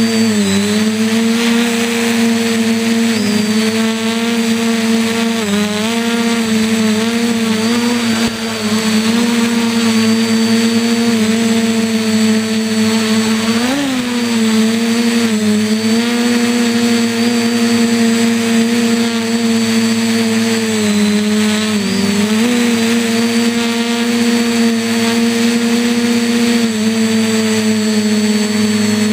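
Quadcopter's electric motors and propellers running steadily, heard from a camera mounted on the craft. Their pitch dips and recovers several times as the throttle changes, with a sharp rise and fall about fourteen seconds in.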